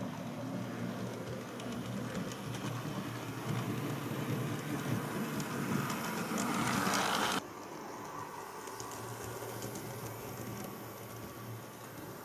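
Model railway locomotive running on the layout's track, a steady motor hum with the rumble of wheels on rail. It grows louder as the train passes close about seven seconds in, then drops off abruptly to a quieter hum.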